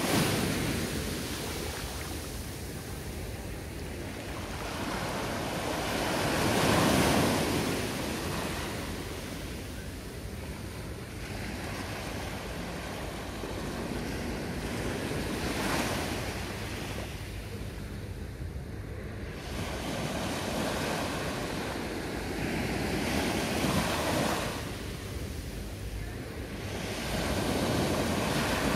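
Small waves breaking and washing up onto a sandy beach, the surf swelling and fading again every several seconds.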